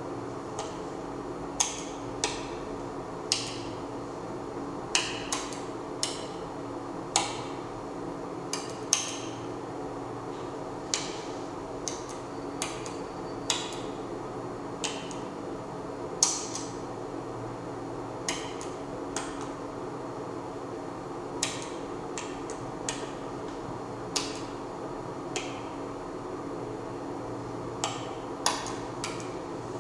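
Irregular sharp clicks and knocks, some with a brief metallic or glassy ring, spaced from under half a second to a few seconds apart over a steady low hum.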